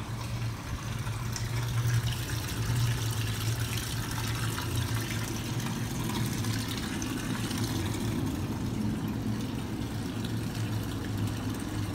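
Water running from a garden hose onto a wet concrete balcony floor, a steady hiss, with a steady low hum underneath.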